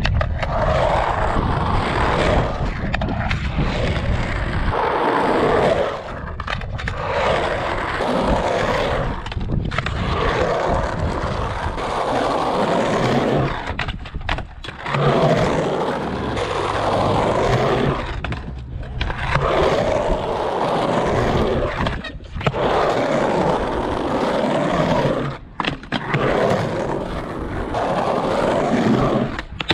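Skateboard wheels rolling over concrete ramps and flat ground, a loud steady rumble broken by several brief drops where the board leaves the surface.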